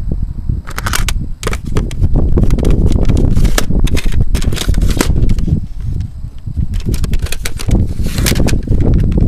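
Handling noise on a handheld camcorder's microphone: a low rubbing rumble with many quick clicks and rattles.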